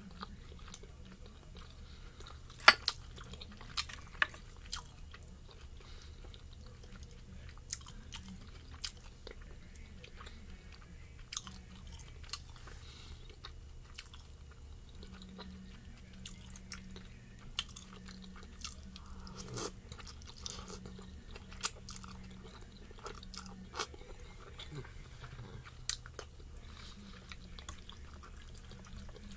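Close-miked eating: chewing and mouth smacking on chicken dumplings and spicy noodles, with scattered sharp wet clicks. A steady low hum runs underneath.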